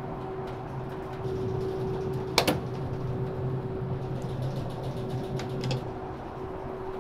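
Steady low machinery hum inside a car ferry, with a sharp metallic click about two and a half seconds in and a few lighter clicks later as a locked door's lever handle is tried. The low part of the hum drops away near the end.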